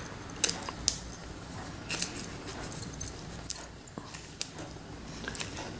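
Knife blade cutting a slice off a two-component putty stick, with scattered small clicks and the rustle of gloved hands handling it.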